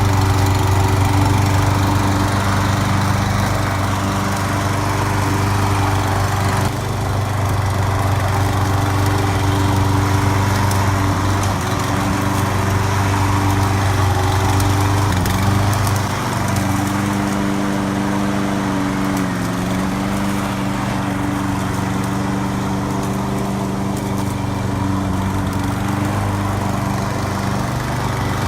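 Engine of a hybrid GOAT 22T remote-control slope mower running steadily at a constant speed. The engine note shifts slightly a couple of times partway through.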